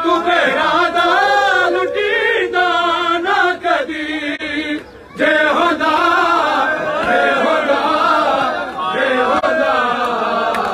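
A group of male voices chanting a noha, a mourning lament, in a wavering melody. The chanting breaks off briefly a little before halfway through, then resumes.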